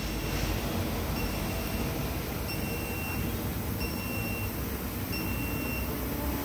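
Vehicle lift lowering a car: a steady running hiss and hum, with a short high-pitched warning beep repeating about every 1.3 seconds, five beeps in all.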